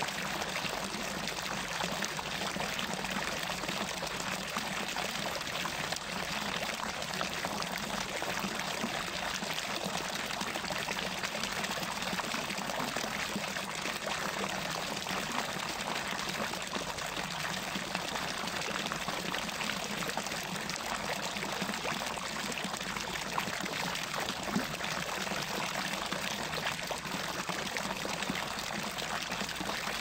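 A steady stream of water pouring from a spout and splashing into a pool, an even, unbroken splashing with no change in flow.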